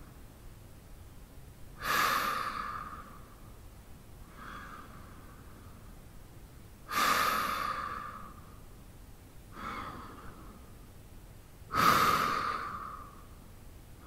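A man breathing slowly and deeply in sleep. There are three loud breaths, each starting suddenly and trailing off over a second or so, with a softer breath between each, about one full breath every five seconds.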